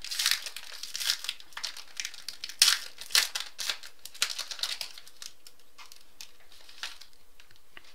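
Foil wrapper of a 2014 Bowman Sterling football card pack crinkling and tearing as it is pulled open by hand: dense crackles, the loudest snap a little under three seconds in, then sparser crinkles that die away near the end.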